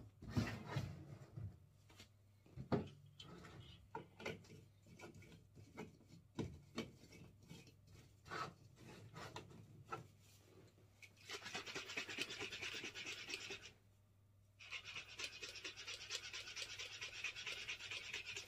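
Shaker cup of milk and energy powder being shaken hard: a dense, even rattle for about two and a half seconds, a short pause, then about four seconds more. Before that, scattered light clicks and taps as the powder tub and cup are handled.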